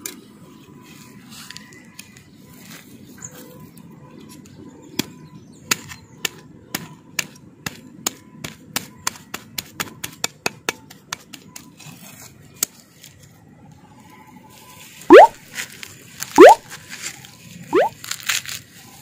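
Coconut husk being stripped. First comes a run of quick, sharp clicks as a sickle blade cuts into the fibrous husk. Then come three loud ripping tears about a second apart, each rising in pitch, as the husk fibres are pulled apart by hand.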